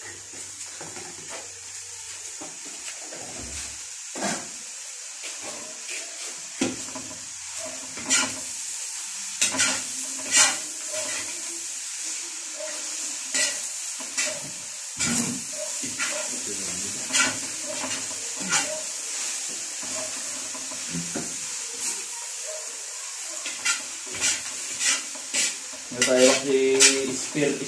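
Fried rice sizzling in a large iron wok over a gas burner, while a metal ladle stirs it, scraping and clanking against the wok in irregular strokes.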